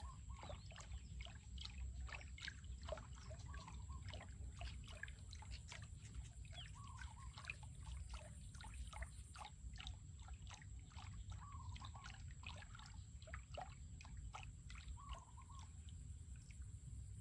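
Birds chirping in many quick, short calls, with a lower wavering call coming back every few seconds, over a faint low rumble.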